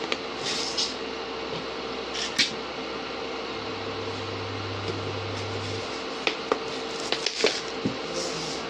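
Steel cooking pots and utensils clinking and knocking a few times, once about two seconds in and in a cluster near the end, over a steady hum.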